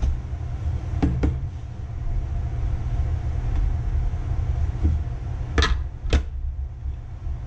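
Blender motor base set down with a couple of light knocks, then the blender jar clunking twice as it is seated on the base, over a steady low rumble. The motor is not running.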